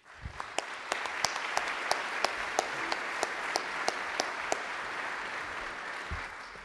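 Audience applause that swells quickly and holds steady. A few sharp, close claps stand out about three times a second through the first four and a half seconds, and the applause starts to die away near the end.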